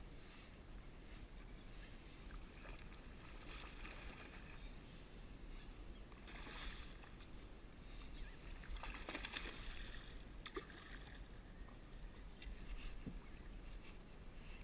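Water splashing and lapping around a kayak, with several louder splashes from the churned surface beside the hull about a third of the way in, in the middle and near the end.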